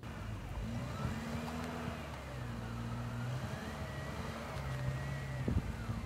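Subaru Forester's engine running while the car sits in deep snow, its note steady with small rises and dips, and a whine above it that wavers up and down.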